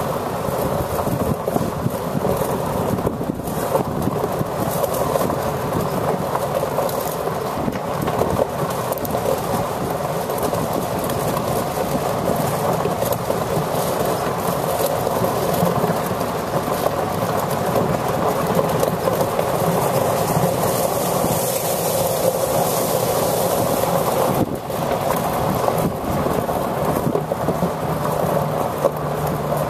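1998 Ford F-Series water truck's engine idling, a steady, even rumble.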